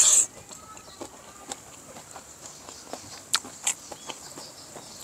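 Chickens clucking in the background while a person eats close to the microphone: sharp mouth smacks and chewing clicks, two louder ones a little after the middle, and a short loud rush of noise at the very start.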